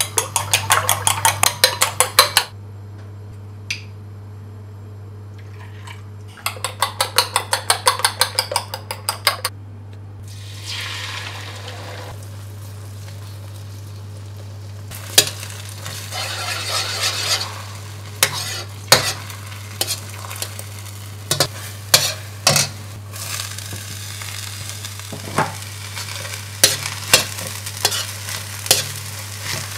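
A fork beating eggs in a ceramic bowl, two spells of quick, even strokes. About ten seconds in, the beaten egg hits hot oil in a wok and sizzles, and from a few seconds later a metal ladle knocks and scrapes against the wok as the egg and Chinese garlic chives are stir-fried.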